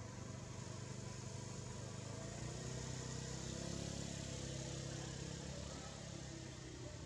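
A motor engine running steadily off-screen, a low hum that grows louder a couple of seconds in and eases again toward the end, over a steady hiss.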